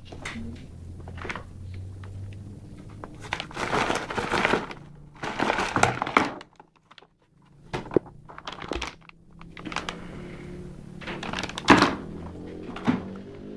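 Packaging and parts being handled: irregular thunks and knocks with plastic crinkling, and a short quiet gap about halfway through.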